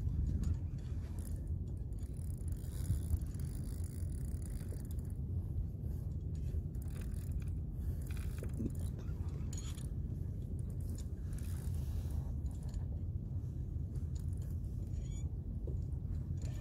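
Steady low rumble of wind and water on the microphone out on open water, with scattered light clicks and scrapes.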